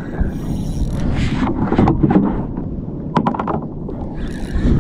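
Wind buffeting the microphone over water sloshing against a fishing kayak, with a few quick knocks about three seconds in.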